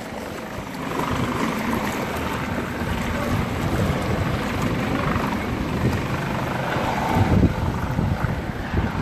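Floodwater sloshing and swirling around legs as people wade through it, with wind buffeting the microphone.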